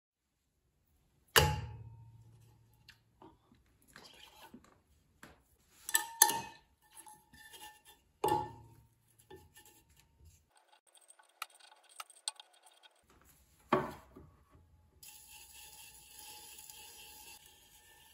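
A clay slab being rolled out on a potter's wheel's metal wheel head with a wooden rolling pin, with several sharp knocks that each leave a short metallic ring and small ticks between them. Near the end there is a steady scratching as a needle tool cuts the rolled clay into a circle.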